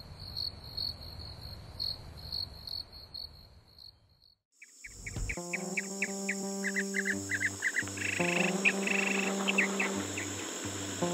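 Crickets chirping in a steady high pulse of about three chirps a second. They fade out about four seconds in. A low thump then comes about five seconds in, followed by music with steady bass tones and short high notes.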